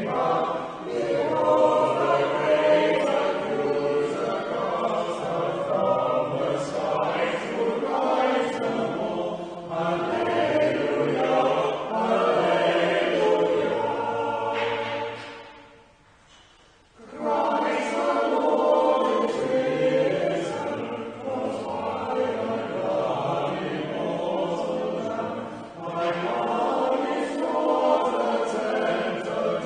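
Church choir singing, with a short pause about halfway through before the next phrase begins.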